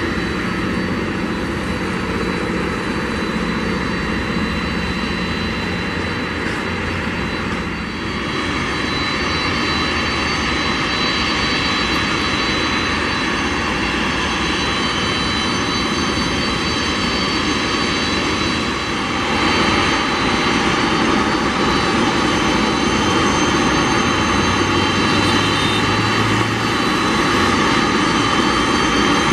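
Boeing 747-400 freighter's four jet engines running at taxi power: a steady rumble with a high whine, growing louder about two-thirds of the way through as the jet comes closer.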